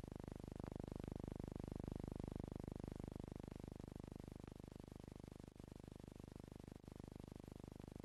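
Faint, steady low hiss and hum of a film print with no recorded soundtrack, with two brief dropouts in the second half.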